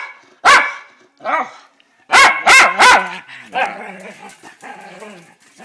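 Small dogs play-fighting, one barking: two sharp barks in the first second and a half, then three quick loud barks about two seconds in, followed by softer, quieter vocalizing.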